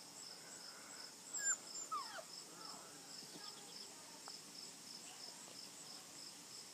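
A six-week-old standard poodle puppy whimpering briefly about a second and a half in: a few short, falling whines. Crickets chirp steadily behind it in a quick, even pulse.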